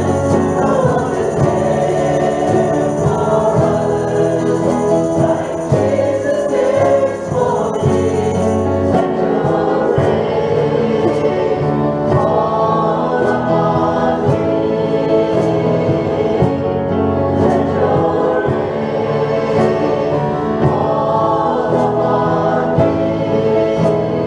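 Church choir singing a worship song with instrumental accompaniment. From about a third of the way in, a light percussion stroke keeps time on the beat.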